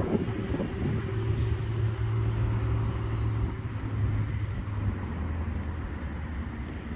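A vehicle engine running steadily with a low hum, which drops slightly in pitch about five seconds in.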